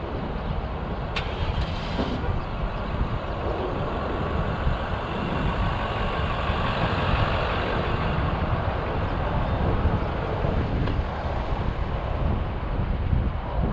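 Parking-lot traffic: vehicles running and moving, swelling louder in the middle and easing off, over wind rumbling on the microphone. A short, sharp hiss comes about a second in.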